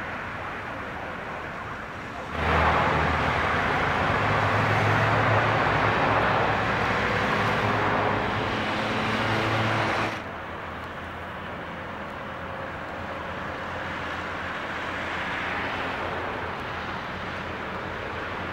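Road traffic noise from a busy multi-lane road. For about eight seconds, starting a couple of seconds in, a much louder stretch with a steady low hum comes in and cuts off as abruptly as it began.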